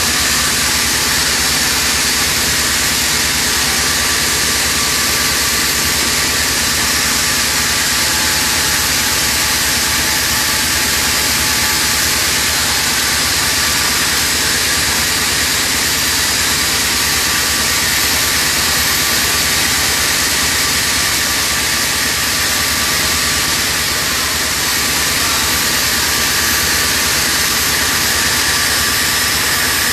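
Hangzhou Fortune oxygen-generating machine running steadily: an even mechanical hum under a loud hiss, with a faint steady whine.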